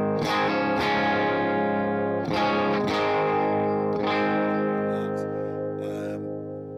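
Electric guitar through its Mojo gold foil humbucker in full humbucker mode, a handful of chords strummed in the first four seconds, the last left to ring and die away.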